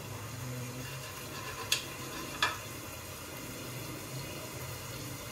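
Steady sizzling of chicken karahi cooking in its pan on a gas flame. A knife taps twice against a glass plate as green chillies are cut, about two seconds in.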